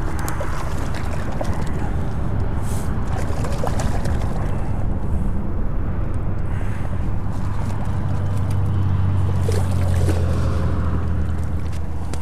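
Wind buffeting the microphone: a steady low rumble that swells near the end, with a few faint handling clicks.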